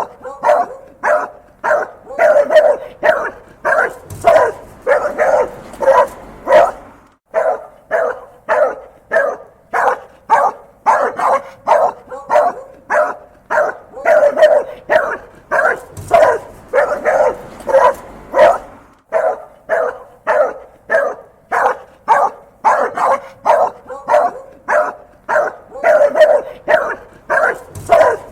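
A dog barking angrily in a rapid, unbroken string, about two or three barks a second with only brief pauses.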